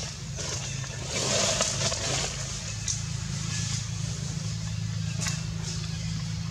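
Steady low hum of a running motor, with a brief rush of hiss about a second in and a couple of faint clicks.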